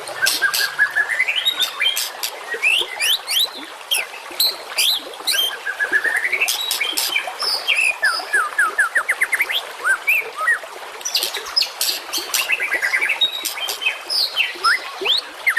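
Songbird song recorded as masteran (tutor song for contest birds such as the white-rumped shama): a dense, unbroken stream of sharp chirps, whistled glides and trills. Around the middle comes a quick run of about eight falling notes, and several notes rise steeply in pitch.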